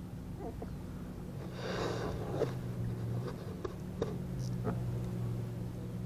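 Fishing reel being cranked as a hooked bass is fought from a boat: a short whirring rush about two seconds in, then several sharp clicks and knocks, over a steady low hum.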